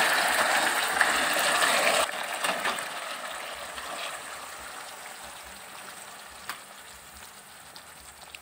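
Chili-tomato sauce sizzling in a wok as spaghetti is tossed through it with tongs, with a couple of sharp clicks of the tongs. The sizzle drops sharply about two seconds in, then fades away.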